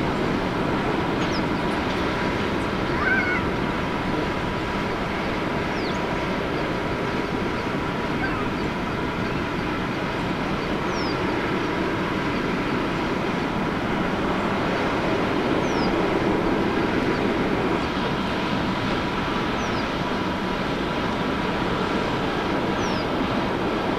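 Distant jet airliner engines running steadily, with a thin, steady whine over the rumble.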